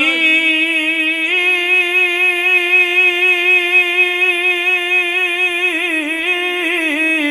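A man's singing voice holding one long, drawn-out vowel with a slow vibrato, a waz preacher stretching out a sung line; the pitch wavers more near the end.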